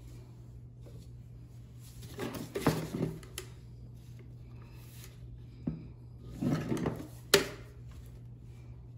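Handling noise of gloved hands working at a plastic sink drain trap: two bursts of rustling and knocking, about two and six seconds in, the second ending in a sharp tap. A steady low hum runs underneath.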